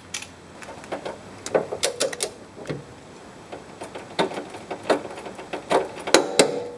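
Socket wrench clicking in short, irregular strokes, with metallic clinks, as the small nuts on the radius rod plate studs are tightened.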